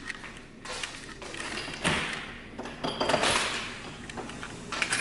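A door being opened: a thud about two seconds in, then a short sliding rush with a faint squeak about a second later.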